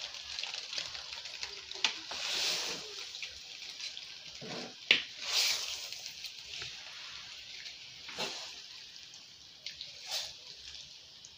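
Wooden spatula mixing spaghetti and tomato stir-fry sauce in a metal pot: wet squishing of the saucy noodles, with a few sharp knocks of the spatula against the pot, the loudest about five seconds in.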